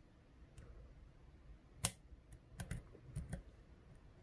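Metal lock pick tapping and lifting the pins inside an ASSA 600 pin-tumbler lock cylinder while checking which pins are set. There are a few small sharp clicks: one louder click about two seconds in, then a handful of lighter clicks shortly after.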